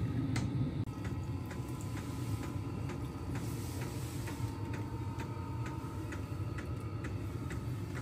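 HCALORY diesel air heater running, its fuel dosing pump clicking evenly nearly three times a second over the steady low hum of the heater.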